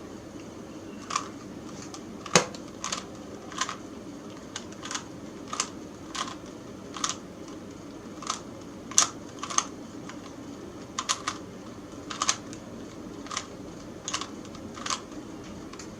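Plastic Rubik's Cube being twisted by hand: a string of about twenty short, sharp clicks at an uneven pace as the layers are turned. These are the moves of the last stage, orienting the four final corners.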